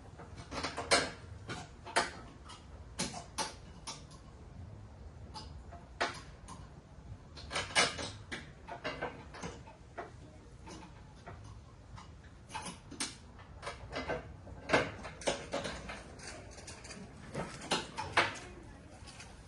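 Irregular sharp clicks and light knocks, one or a few at a time with short pauses between, like hand tools and metal parts being handled during mower repair work.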